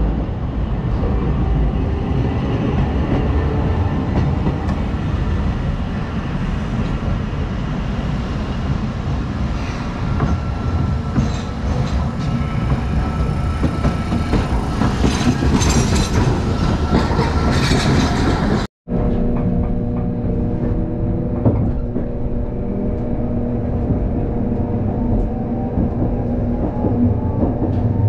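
A Hakodate city streetcar pulling into a street stop alongside, its wheels running on the rails. After a cut, a steady hum with several held tones and rail noise from inside the moving streetcar.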